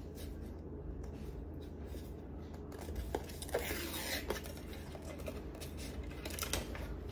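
Paper wrapper being peeled and torn off a cardboard tube can of refrigerated cinnamon-roll dough, in short rustling rips, a few around the middle and again near the end.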